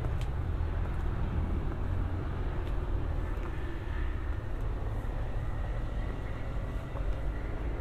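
Footsteps climbing concrete steps, a few faint scuffs and taps, over a steady low rumble.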